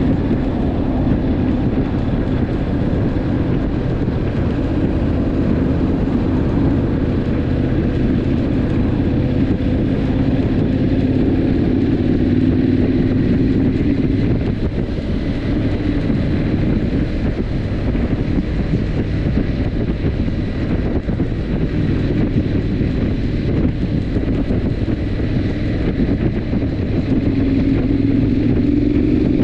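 Triumph Scrambler 900's parallel-twin engine running steadily at cruising speed, with wind rushing over the microphone and tyre and road noise. The engine note eases off about halfway through and picks up again near the end.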